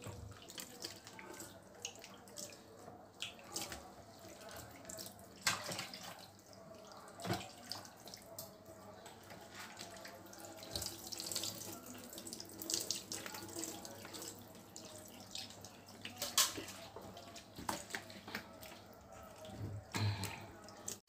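Kitchen tap running into a stainless steel sink as a cat is rinsed and rubbed by hand under it, the water splashing off its fur, with a few sharp knocks.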